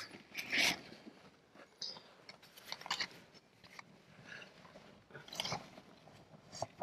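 Loose stones and gravel crunching and scraping in irregular bursts as a caver crawls over rubble in a tight cave passage.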